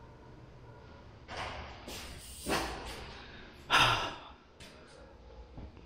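A man breathing heavily: about three loud, noisy breaths or sighs, the loudest about four seconds in.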